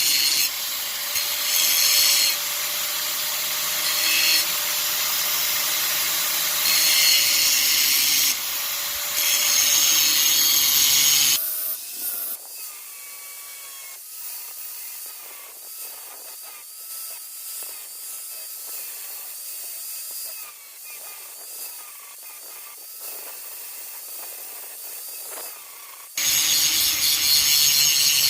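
Power grinder grinding down the head of a steel brake-caliper banjo bolt to clear a wheel: loud grinding for about eleven seconds, then a quieter stretch with a wavering whine, and loud grinding again near the end.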